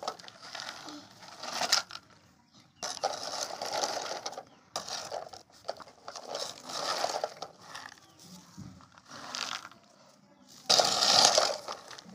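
Plastic toy loader scooping and scraping through dry fish feed pellets on concrete, the pellets rattling as they are pushed and poured. Several scrapes of a second or two each, the loudest near the end.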